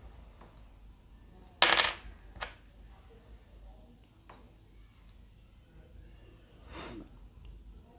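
A small hard object clatters onto the work surface about two seconds in, followed by a few light clicks and a soft scrape as small plastic model parts and a small screwdriver are handled.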